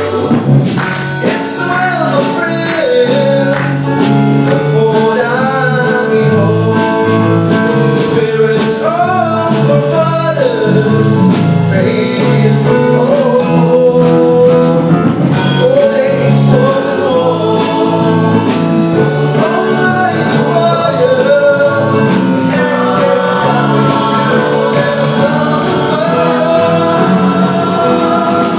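Youth choir singing in close harmony behind a young male lead voice on a microphone, with a rhythmic beat of short sharp clicks running through, likely from the choir clapping.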